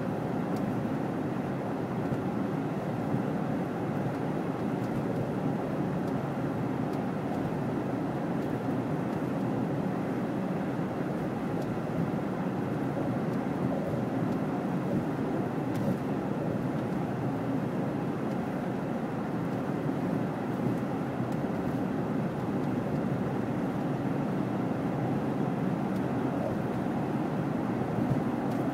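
Steady road and engine noise heard inside a moving car, its tyres rolling on a snowy road.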